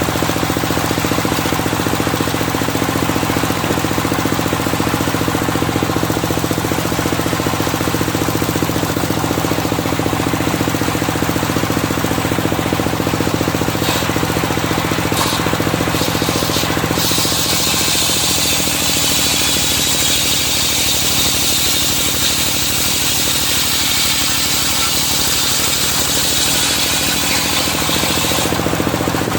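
Engine-driven circular sawmill running steadily with a low, even engine drone. From a bit past halfway until just before the end, a loud high hiss rides on top of the drone: the blade cutting through medang timber.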